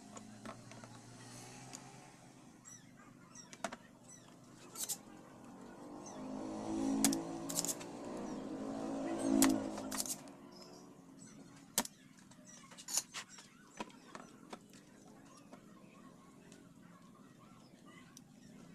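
Scattered sharp clicks and taps of small tools during circuit-board repair work, with a faint pitched, voice-like sound swelling in the background from about six to ten seconds in.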